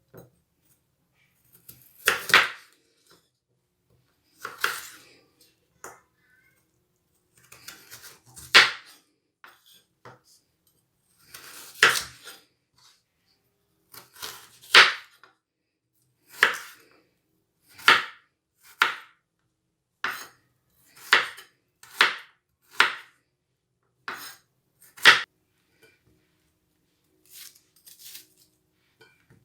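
Knife chopping carrots on a cutting board. The first sharp chops come a few seconds apart, then they settle into a steadier run of about one chop a second.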